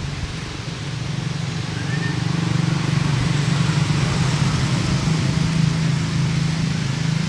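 Steady low hum of a running motor vehicle engine, growing louder about two seconds in and then holding, over an even hiss.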